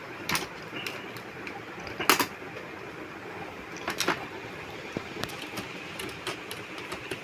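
Scattered light clicks and knocks of hands handling a TV's board and cables over a low steady room hiss, the loudest knock about two seconds in.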